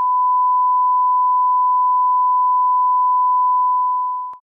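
Broadcast line-up test tone played with colour bars: one steady, unwavering pure tone that cuts off suddenly with a small click near the end.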